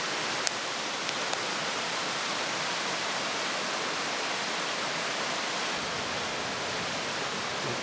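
Wood fire burning hard in a compact cylindrical YOLER fire pit: a steady rushing hiss of flames, with a few sharp crackles in the first second and a half.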